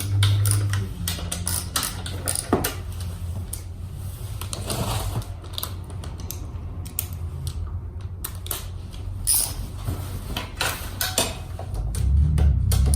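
Irregular metallic clinks and clicks of hand tools and parts being handled during work on a Honda Today scooter's seized rear wheel.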